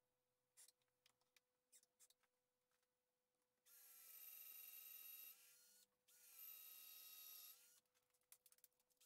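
A few light clicks as quick-grip bar clamps are tightened onto a drilling jig, then a cordless drill runs in two bursts of about a second and a half each. Each is a steady motor whine that sags slightly in pitch just before it stops, boring cross-dowel holes through the jig.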